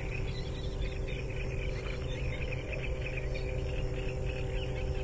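Marsh ambience at dusk: a dense, continuous chorus of short high chirping calls over a steady low rumble.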